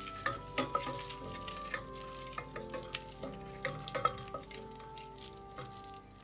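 Butter sizzling and foaming in a stainless steel pot with cardamom pods frying in it, stirred with a wooden spatula, with irregular sharp crackles and taps throughout. Soft background music with long held notes plays underneath.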